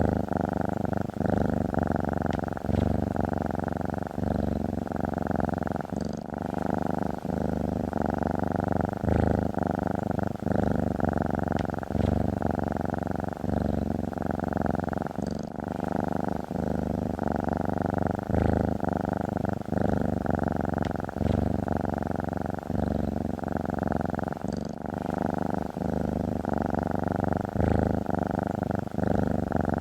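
Domestic cat purring continuously, the purr easing and resuming in a regular rhythm with each breath.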